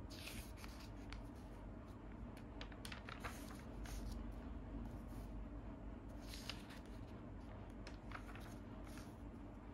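Pages of a printed paper magazine being turned by hand: several short, soft paper rustles and swishes as the sheets are lifted and flipped over, over a steady low hum.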